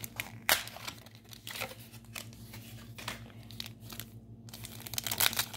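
Foil wrapper of a Pokémon trading card booster pack crinkling as it is handled, along with cards being shuffled. There is a sharp snap about half a second in, and the crinkling grows denser near the end.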